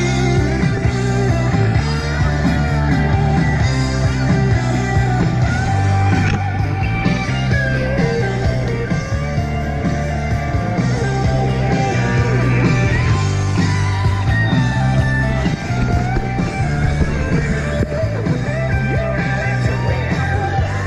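Background rock music with guitar and bass.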